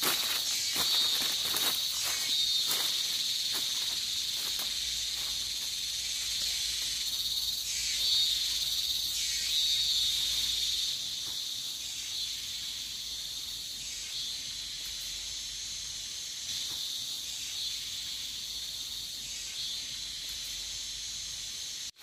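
Dense chorus of tropical forest insects, a steady high-pitched shrill that swells louder a few times in the first half and eases slightly after that.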